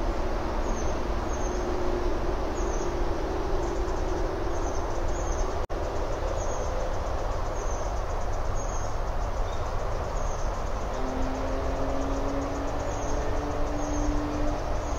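Steady outdoor background noise picked up by the nest camera's microphone: a low rumble with a faint hum that slowly shifts in pitch, cut by a brief dropout about six seconds in.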